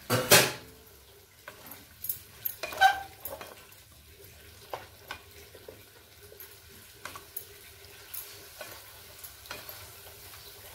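A wooden spatula stirring and scraping marinated chicken pieces in a metal kadai, with irregular scrapes and knocks against the pan and a faint sizzle of frying. A short loud clatter comes right at the start.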